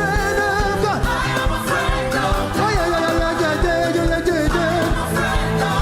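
Live gospel praise music: a band with a steady beat and singing voices.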